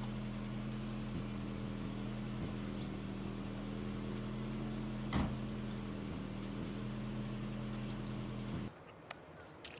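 A steady low mechanical hum, like a running motor, that starts abruptly and cuts off sharply near the end. A single sharp click about five seconds in, and a few faint high chirps shortly before the hum stops.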